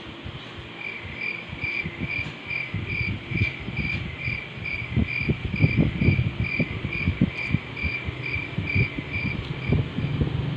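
A cricket chirping steadily, about two short high chirps a second, stopping shortly before the end. Underneath are light rustling and handling knocks.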